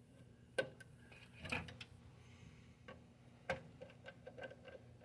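A few scattered light clicks and taps of a multimeter's test leads and hand tools being worked at a fire alarm panel's circuit terminals, while the meter is wired in series with the circuit.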